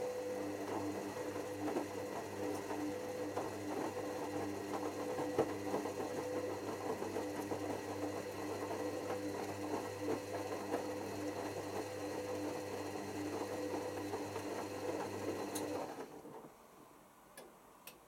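Hoover WDYNS654D washer-dryer's drum motor turning the drum during the cotton cycle's first rinse: a steady whining hum that stops about two seconds before the end, followed by a couple of faint clicks.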